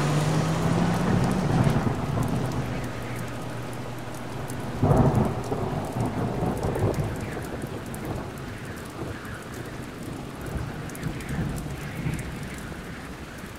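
Heavy rain falling on a street, with a sudden clap of thunder about five seconds in. A passing car's engine hum dies away in the first second or two, and the rain slowly grows quieter.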